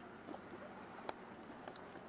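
Mud pot bubbling: faint, irregular soft plops of thick mud. A single sharp click about a second in.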